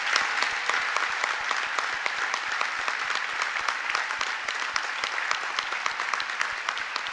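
A large audience applauding: dense, steady clapping that eases slightly toward the end.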